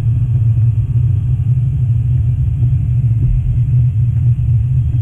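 Steady low rumble of a model train running on the layout's track.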